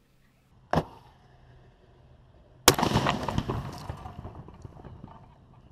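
Firework mortar going off: a sharp bang about a second in, then a louder explosion nearly two seconds later, followed by crackling that dies away over about two seconds.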